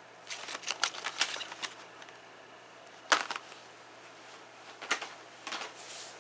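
Sharp clicks and light rattles from tools being handled and set down on a hard surface: a quick run of clicks in the first couple of seconds, one louder click about three seconds in, then a few scattered softer ones.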